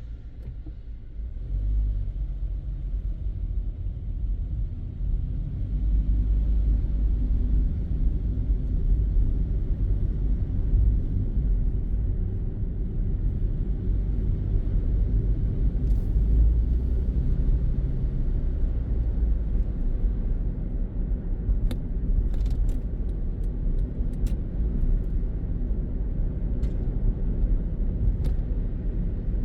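Car driving on city streets, heard from inside the cabin: a steady low rumble of engine and road noise that swells about two seconds in as the car picks up speed. A few faint sharp clicks in the second half.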